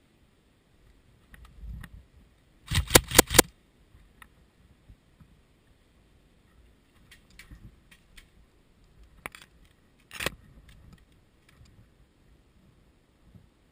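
Airsoft rifle fire: a quick string of about five sharp shots about three seconds in. Fainter scattered clicks follow, with another sharp knock near the ten-second mark.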